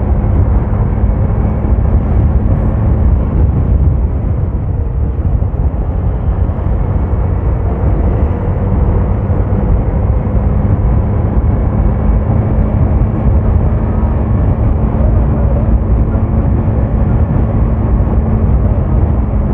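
Vehicle on the move: steady engine hum under a continuous low rumble of road and wind noise, unchanging throughout.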